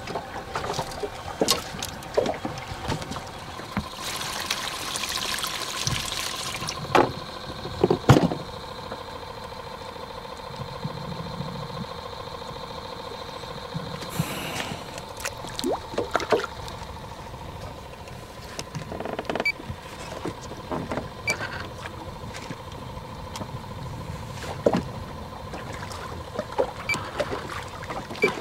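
Water lapping and trickling against a fishing boat's hull, under a steady faint whine, with scattered knocks and two brief hisses.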